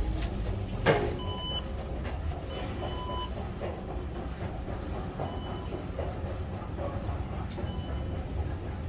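Steady low rumble of a metro station hall, with a sharp thump about a second in and a few short, high electronic beeps.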